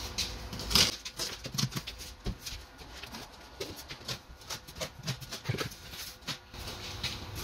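Packing tape on a shipping box being cut and the cardboard box handled: one loud stroke about a second in, then scattered small scratches and rustles.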